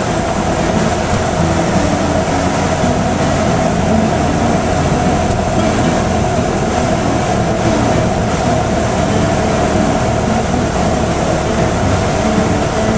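Steady drone of a light aircraft's engine and propeller heard inside the cabin, a strong hum over a wide rush of airflow noise.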